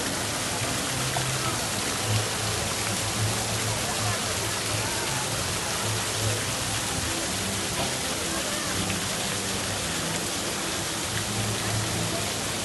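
Water from the Fountain of the Four Rivers pouring and splashing steadily into its stone basin.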